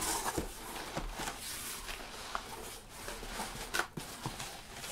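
Cardboard shipping box being opened and handled by hand: rustling and scraping with small clicks and knocks.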